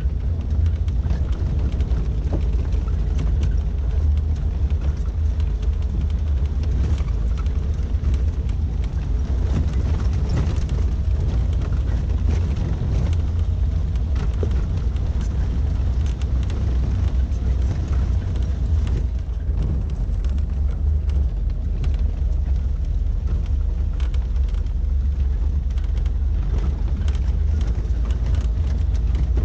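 1988 Suzuki SJ413 Samurai driving on a gravel mountain track: a steady low rumble of its 1.3-litre four-cylinder engine and the rough road, with scattered small knocks and rattles throughout.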